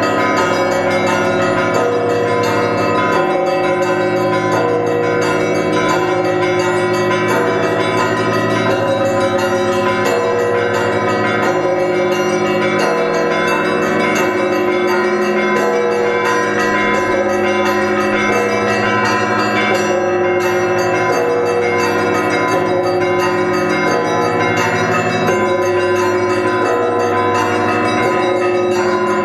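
Russian Orthodox monastery bells ringing continuously, several bells of different pitches struck over and over in a steady repeating pattern while their tones ring on together.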